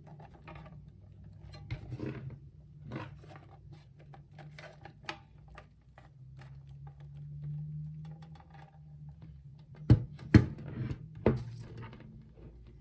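Hands handling an unboxed power supply and its packaging: scattered rustles and light clicks over a low steady hum. About ten seconds in come three sharp knocks as something hard is set down or bumped.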